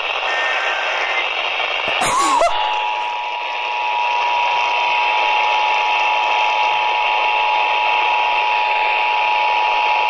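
Emergency Alert System test received through a handheld radio's speaker over steady radio hiss: a short burst of the digital header tones in the first second, a brief crackle about two seconds in, then the two-tone EAS attention signal held steadily through the rest.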